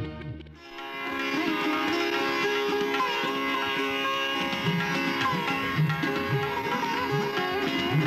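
Instrumental title music: a plucked-string melody that bends in pitch over held drone tones, with hand-drum strokes beneath. It starts about half a second in, just after an earlier music cue ends.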